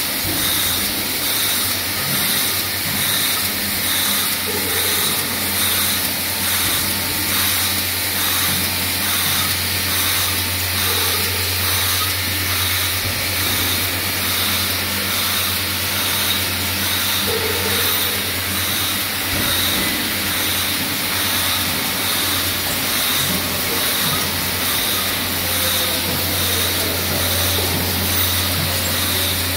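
Automatic syringe assembly machine running: a steady low hum, typical of vibratory bowl feeders, under a continuous hiss and a rhythmic clatter from its pneumatic assembly stations.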